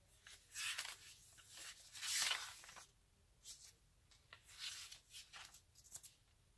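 Paper pages of a notebook being turned and handled: a series of dry rustles, the loudest about two seconds in, then several softer ones.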